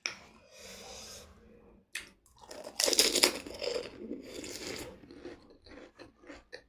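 Food bitten and crunched close to the microphone, loudest about three seconds in, then chewed with small wet clicks.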